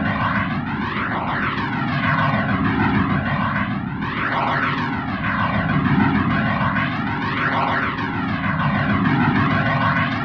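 Electronic music track: a dense wash of noise run through a flanger-like sweep that rises and falls every second or two, giving a whooshing, jet-like sound.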